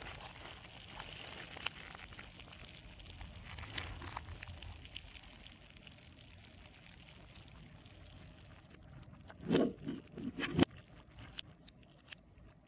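Orbeez water beads pattering and sliding against a squishy stress ball, played in reverse. A few louder squelches come about ten seconds in, then some sharp clicks near the end.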